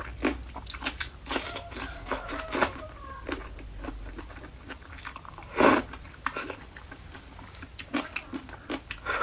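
A person biting and chewing crunchy food close to the microphone: a run of short, sharp crunches and mouth clicks, with one longer, louder sound about halfway through.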